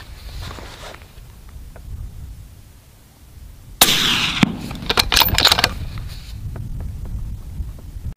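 A rifle shot at a coyote about four seconds in, followed by a couple of seconds of sharp clattering noise.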